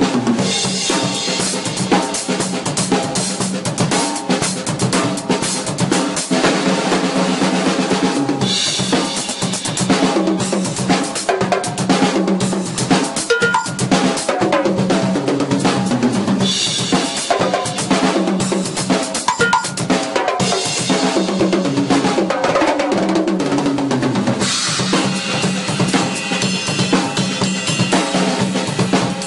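An acoustic drum kit played with sticks, kick, snare and toms in a busy groove. Bursts of cymbal wash come in about a third of the way through, just past halfway, and again over the last few seconds.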